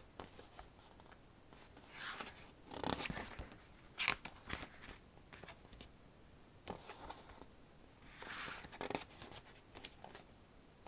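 Pages of a photo book being turned by hand: several short paper rustles and swishes, with one sharper snap of a page about four seconds in.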